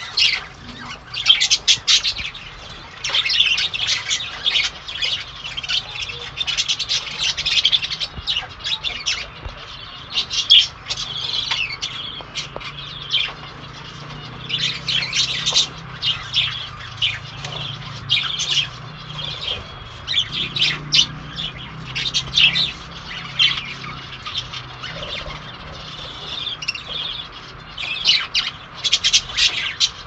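A flock of budgerigars chattering, with many overlapping squawks and chirps that keep going without pause.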